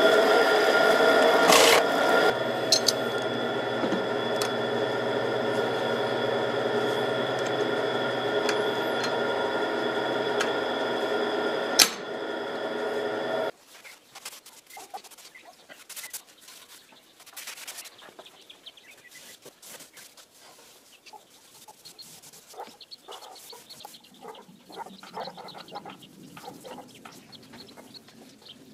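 Electric hand planer running at a steady pitch, a constant motor whine that cuts off abruptly about 13 seconds in. After that, much quieter, chickens clucking.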